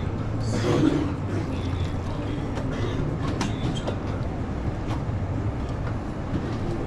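Busy kitchen background: a steady low hum with a few scattered sharp clicks and clatters of utensils.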